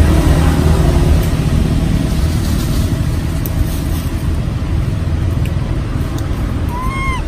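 Steady low rumble of motor-vehicle noise, strongest in the first second or two and then easing a little. Near the end a single short squeaky call rises and falls.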